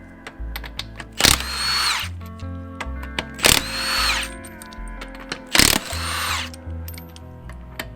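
A handheld power tool spinning lug nuts off a truck wheel in three short bursts about two seconds apart, each under a second, its motor whine rising then holding. Background music with a bass line runs underneath.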